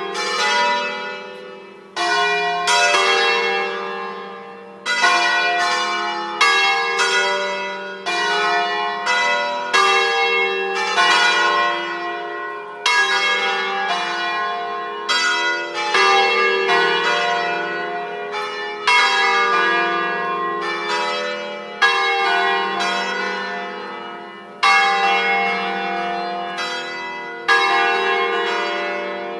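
Several church bells swinging in a tower, ringing a festive peal: overlapping strikes of different pitches ring on and fade, with a fresh loud round of strikes about every two to three seconds.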